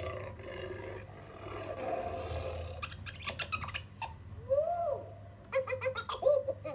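Recorded animal calls played through the small speaker of a LeapFrog 100 Animals Book as its pictures are touched: one call rising and falling about halfway through, then a quick run of short chattering calls near the end, matching the orangutan and then the lemur being pressed.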